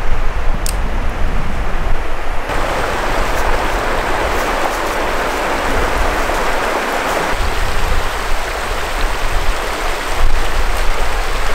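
Steady rushing of a shallow river running over rocks, growing brighter and louder about two and a half seconds in, with a low rumble underneath.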